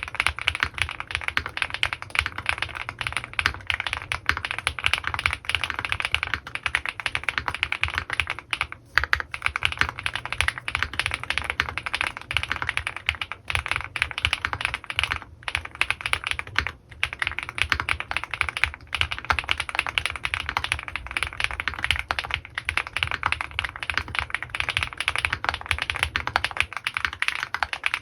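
Fast, continuous typing on an Owlab Mr.Suit custom mechanical keyboard with lubed Gateron Pure Berry switches and GMK doubleshot ABS keycaps, a dense stream of keystrokes broken by a few short pauses.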